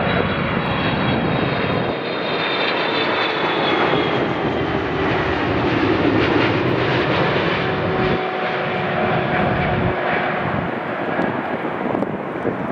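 Jet airliner passing close, its engine noise loud and continuous, with a high whine that slowly drops in pitch.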